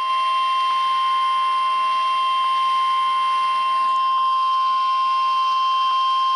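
NOAA Weather Radio 1050 Hz warning alarm: one steady, unbroken tone with radio hiss behind it, sounded as a test of the warning alarm.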